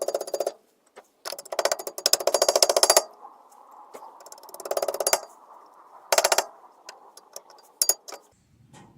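Rapid metallic clicking in about five bursts of different lengths, the longest nearly two seconds, from hand tools at work on a car's rear drum brake.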